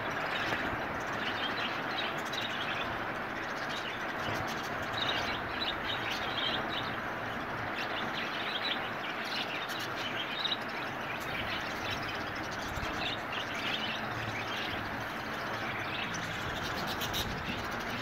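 A large flock of budgerigars chattering and chirping together, many voices overlapping in a continuous twitter.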